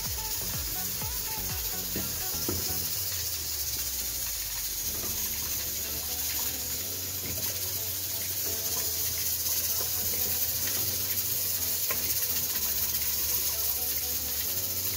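Steady hiss of a pot of broth heating on a gas stove, with a few faint knocks as carrot sticks are put into the pot.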